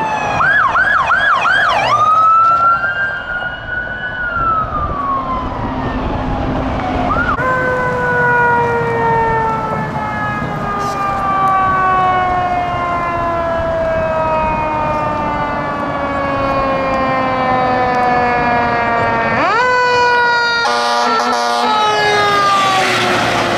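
Emergency sirens from responding fire vehicles. First a fast yelp, then a wail that rises and falls. Then a fire engine's siren slides down slowly in pitch for many seconds, sweeps sharply back up near the end, and is followed by short horn blasts.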